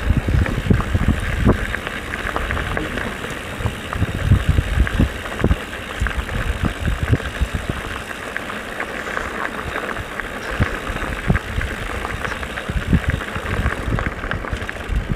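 Mountain bike rolling down a dirt trail: steady tyre and riding noise with frequent short knocks and rattles from the bike, and low gusts of wind on the microphone, heavier in the first half.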